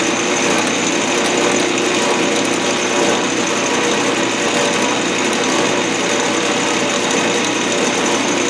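Lathe running steadily, its motor and drive giving a constant whine and hum.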